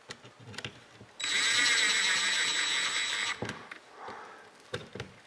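Small electric screwdriver or drill running for about two seconds, driving a screw into the angle grinder's housing, with light clicks and knocks of handling before and after.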